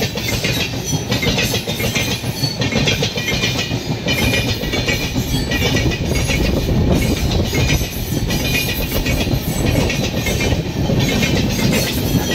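Passenger coaches of an Indian Railways express train rolling past close by, their wheels rumbling and clattering over the rail joints in a steady, loud din.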